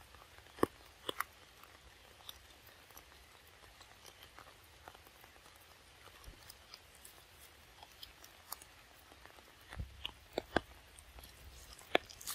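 Young macaque biting and chewing soft mango flesh: faint, scattered wet clicks and smacks.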